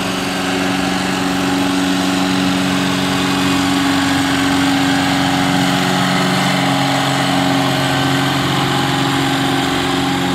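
Ford farm tractor's engine running steadily under heavy load as it pulls a weight-transfer sled.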